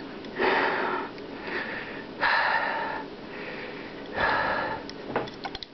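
A man's heavy breathing: three loud, noisy breaths about two seconds apart, close to the microphone. A few light clicks follow near the end.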